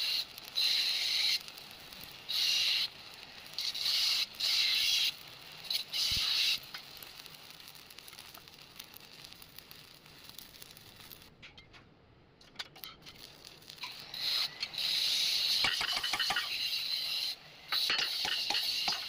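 Electric arc welding in bursts: five short runs of hissing arc in the first six seconds or so, a pause, then a longer run of about three seconds and another short one near the end.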